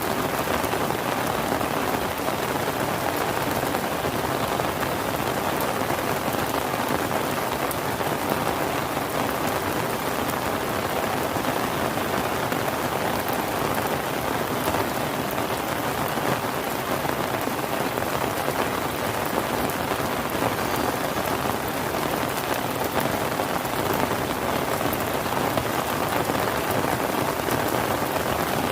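Steady rain falling on surfaces: an even, unbroken hiss with many small drop ticks.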